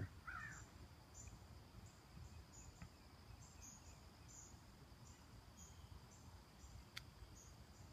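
Faint backyard ambience: an insect chirping high and faint about twice a second over a steady thin high buzz, with one sharp click near the end.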